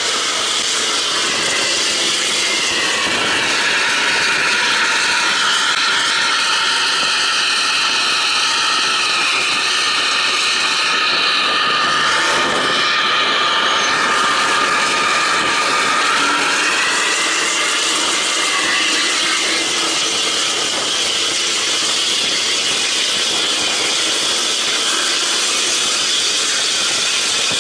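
Intercity bus running hard with a loud, jet-like exhaust and engine whine over steady road noise. The whine rises about three seconds in, holds, and falls away around seventeen seconds.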